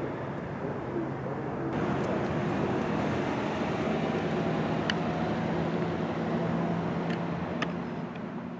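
Low, steady engine hum of a vehicle running, with a few brief high chirps.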